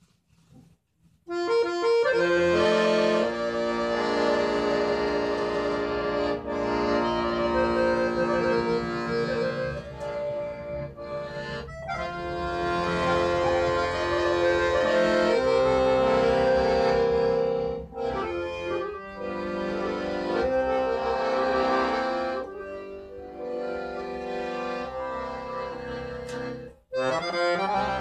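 Hohner Vox piano accordion playing a sevdah tune. It comes in about a second in and stops briefly twice, the second time shortly before the end.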